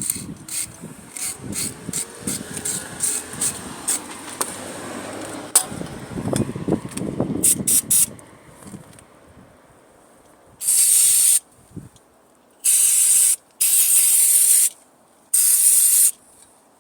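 A brush scrubbing road grime off the brakes, a dense scratching with many small clicks, for the first eight seconds or so. Then come four short blasts of aerosol brake cleaner, each a hiss of under a second.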